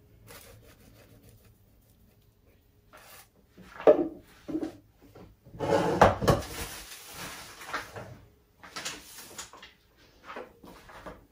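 Kitchen handling sounds as spice containers are opened and used: a few scattered knocks and clatters, with a longer rustling scrape about six seconds in.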